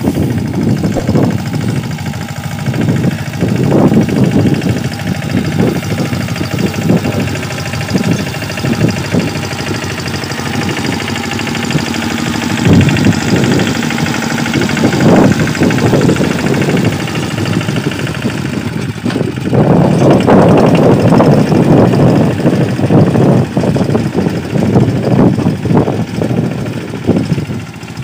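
Engine of a wheat reaper-binder running as it cuts and ties the crop, its loudness rising and falling unevenly.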